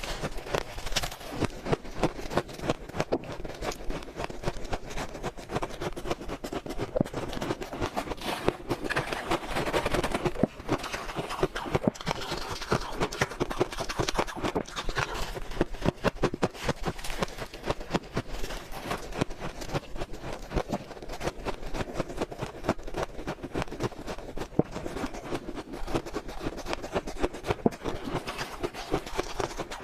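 Close-miked chewing of shaved, powdery frost ice: dense, rapid crunching and crackling without a break.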